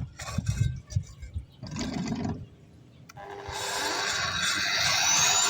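A few low handling knocks, then a wet core drill starting up about three seconds in: a rising motor whine over a growing hiss that settles into a steady run.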